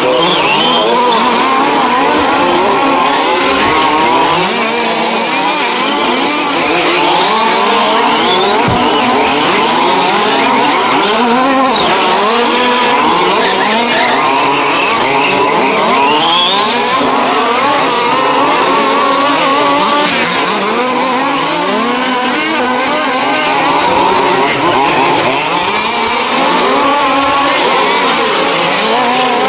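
Several 1:5-scale petrol RC race cars' small two-stroke engines revving up and down together, their high whines overlapping and shifting pitch as the cars accelerate and brake through the corners.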